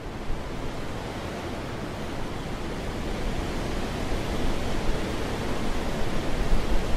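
Wind blowing as a steady rush of noise, growing gradually louder as a gust builds.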